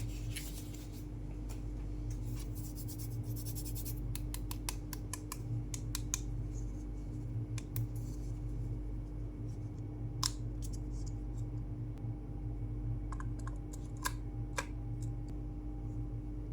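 Hands handling packaging and small plastic parts: scratchy rustling and scattered small clicks, busiest in the first few seconds, over a steady low hum.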